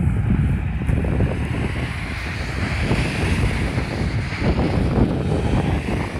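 Wind buffeting the LG G3 smartphone's microphone: a loud, gusty rumble that rises and falls in irregular bursts.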